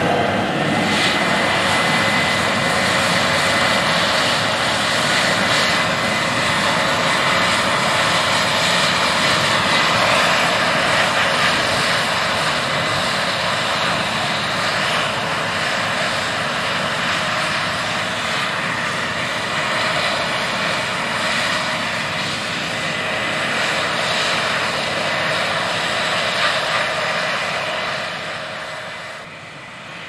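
Case IH 8240 combine harvester and its grain-cart tractor running steadily at work in a soybean field, a continuous machine drone of engines and threshing while the combine unloads on the go. It eases off a little near the end.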